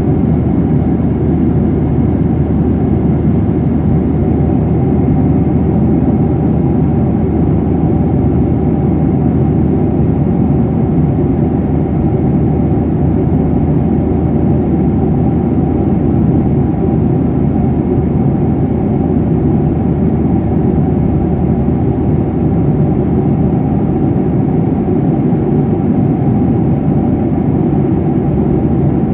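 Steady in-flight cabin noise of an airliner: jet engine and airflow noise, heavy in the low range with a few faint steady hum tones, unchanging throughout.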